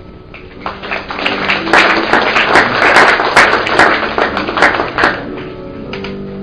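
Audience applause: a burst of hand claps that builds about a second in and dies away near the end, over quiet background music with held notes.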